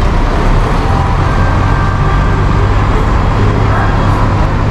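City bus engine running close by over street traffic noise: a steady low drone that strengthens slightly about a second in.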